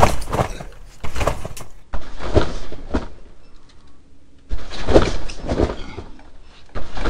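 Trampoline mat and springs sounding with each bounce, one burst about every second with a longer gap in the middle while the jumper is in the air for a flip.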